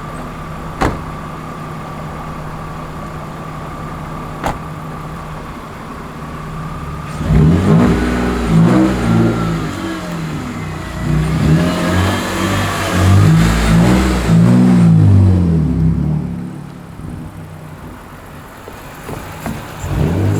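BMW inline-six engine idling steadily with a constant whine, with two sharp clicks. From about seven seconds in it is revved hard, its pitch rising and falling several times over some eight seconds, then it drops back to a lower, steadier running sound before picking up again near the end.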